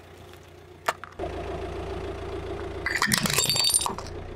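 A car's engine running as the car rolls forward and gets louder about a second in. About three seconds in, the tyre crushes a small ceramic mug, which breaks with a short burst of cracking and ringing clinks.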